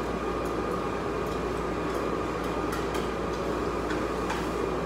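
Steady rushing noise of a restaurant dining room's air conditioning, with a few faint light clicks over it.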